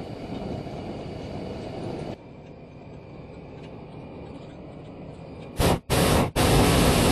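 A low rumble, then about five and a half seconds in the propane burner of a hot air balloon fires three times: a short blast, then two longer ones.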